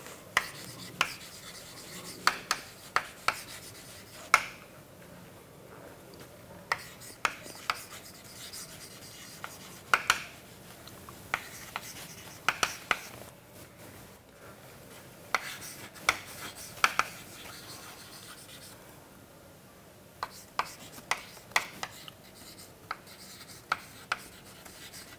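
Chalk writing on a chalkboard: irregular taps and short scratchy strokes as letters are formed, broken by a couple of brief pauses.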